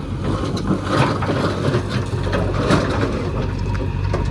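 Earthmoving machine's diesel engine running steadily with a low hum, with irregular crunching and knocks on top.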